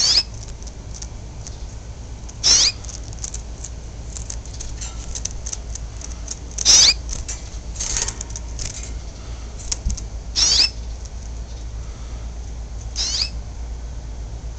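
A caged canary giving six short, high chirps, each a quick sweep in pitch, with fainter twittering between them, over a steady low hum.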